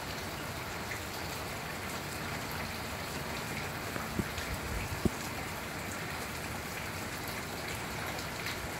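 Steady rain falling, an even hiss of many drops. A couple of short low thumps about four and five seconds in, the second the loudest.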